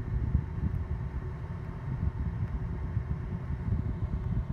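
Low, steady rumble of a 2001 VW Jetta with the 12-valve VR6, heard from inside the cabin while it runs, with some wind noise on the microphone.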